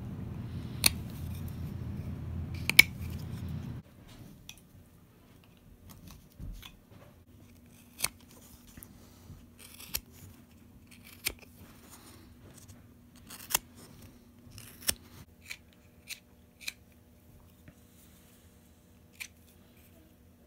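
Carving knife slicing green sugar maple wood, a series of separate crisp cuts a second or more apart as shavings come off a spoon handle. A low steady hum stops abruptly about four seconds in.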